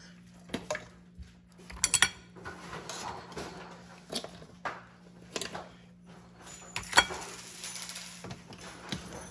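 Steamed mussel shells clinking and clattering against a ceramic bowl and each other as they are handled: a string of sharp separate clicks, the loudest about seven seconds in, over a steady low hum.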